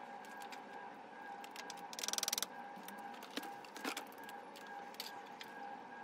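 Hand work fixing the floodlight's cable to the wall with cable clips: a short rattling burst of quick clicks about two seconds in, then two light knocks.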